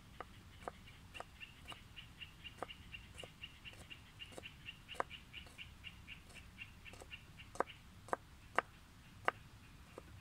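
Kitchen knife chopping fresh green herbs on a wooden cutting board: sharp knocks about twice a second, the hardest ones near the end. A bird gives a fast run of short high chirps through most of it.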